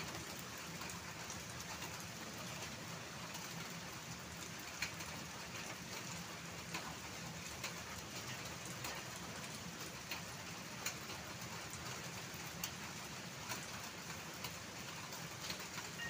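Steady hiss of light rain falling, with scattered faint ticks.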